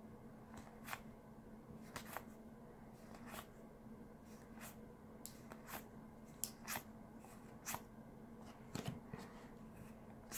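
Trading cards being flicked one at a time off the front of a small stack in the hand, a short soft snap about once a second, over a faint steady hum.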